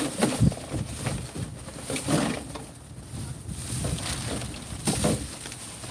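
Clear plastic trash bag crinkling and rustling in irregular bursts as hands rummage through the packaged items inside it.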